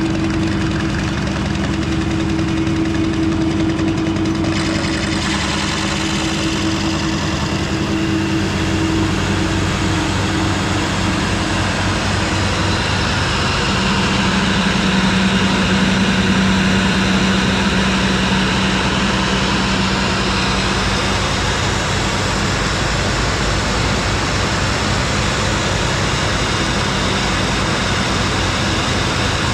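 A motor vehicle's engine running steadily under constant road noise, its note changing about halfway through.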